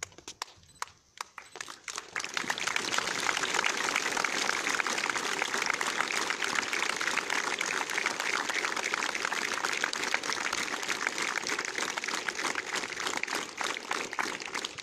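Applause from the massed ranks of cadets: a few scattered claps at first, building within about two seconds to steady clapping, which thins out near the end.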